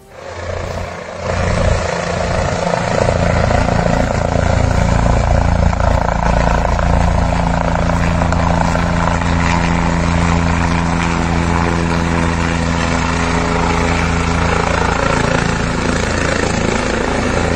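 A helicopter's rotor and engine running in flight: a steady drone that swells in over the first second or two and holds.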